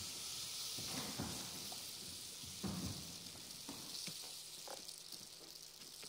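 Rainstick's steady rushing hiss, with a few soft thuds of dancers' bare feet on the floor.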